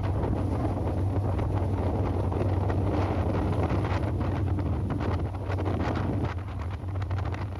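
Wind buffeting the microphone over the steady low drone of a boat's engine.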